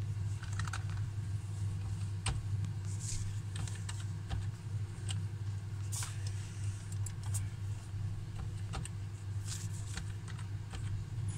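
Computer keyboard being typed on in short, irregular runs of key clicks, over a steady low hum.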